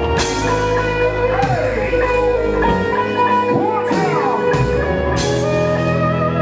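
Loud music over a sound system, with guitar: held notes underneath and melody lines that bend up and down in pitch.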